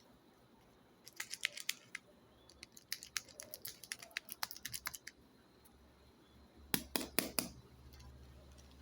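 Candy wrapper being handled and opened: runs of sharp crinkles and crackles, then a louder cluster of four snaps about seven seconds in.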